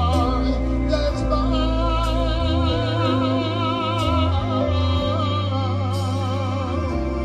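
Music: a love song, a singing voice with a wide vibrato over a bass line and accompaniment.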